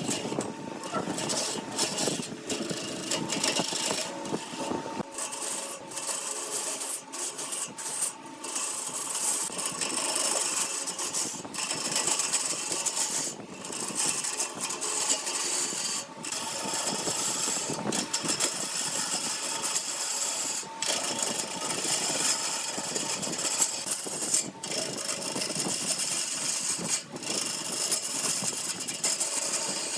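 Wood lathe turning, with a turning tool cutting the spinning wood in a continuous hissing scrape and frequent brief breaks where the cut stops.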